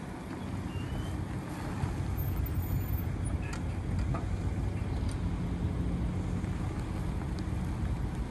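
A vehicle engine idling steadily: an even, low hum with no revving.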